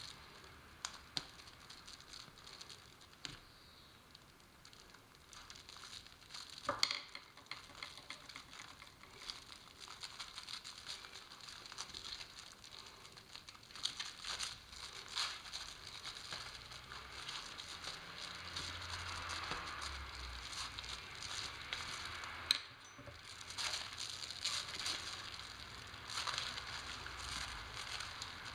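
Plastic sheeting of an air-conditioner cleaning hopper crinkling and rustling as it is handled, with scattered small clicks and taps; the handling gets busier and a little louder in the second half.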